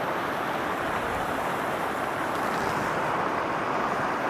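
Fast, shallow mountain river rushing over rocks in white-water rapids: a steady, even rushing noise.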